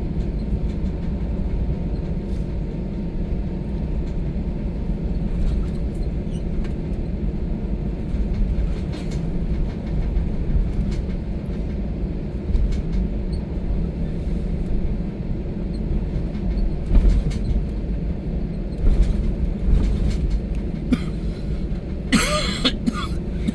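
Steady low rumble of an airliner's engines and cabin after landing, heard from inside the cabin. Near the end there is a short, sharper burst of noise lasting about a second.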